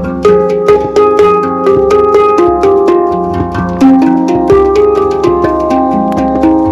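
Instrumental music: quick struck or plucked notes, several a second, changing pitch over held tones.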